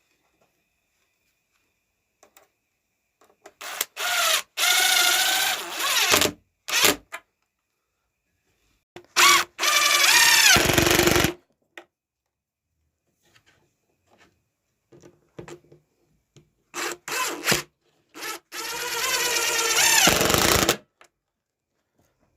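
Power drill driving screws in three runs of a few seconds each, the motor's pitch shifting and dropping as each screw draws tight, fixing the top onto the bird table.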